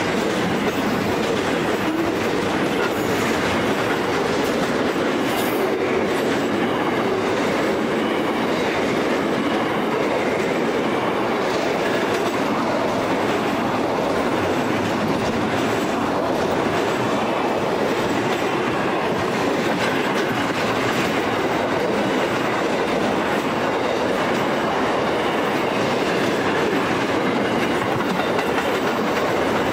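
Wagons of a long steel and container freight train rolling past close by: a steady, unbroken rumble of steel wheels on the rails.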